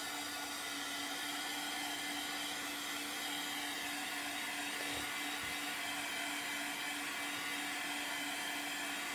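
Small handheld hot-air dryer running steadily, drying freshly applied chalk paste: an even whir with one constant hum under a hiss.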